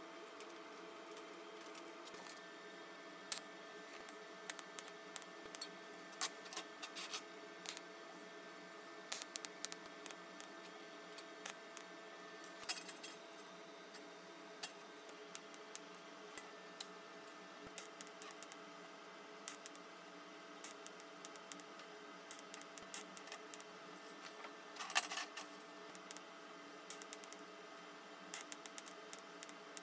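Light, irregular metallic clinks and taps of a small stainless wire-mesh grate being handled and fitted into a sheet-steel stove box on a steel table, over a steady hum. A brief, louder burst of noise comes near the end.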